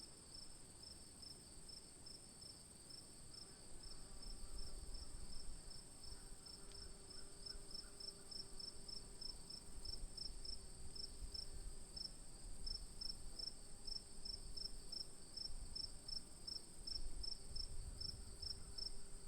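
Crickets chorusing at night: one steady high trill and, beneath it, a chirping insect pulsing at about three chirps a second. A low rumble joins about four seconds in.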